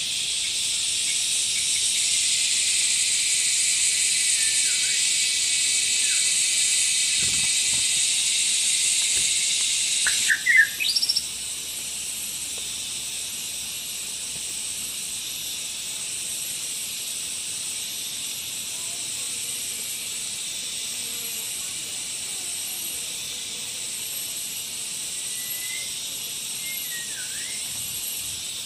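Outdoor ambience: a steady high-pitched hiss that drops in level about ten seconds in. Right at that point come a few quick, rising whistled bird notes, the loudest sound here, and a few faint bird notes follow near the end.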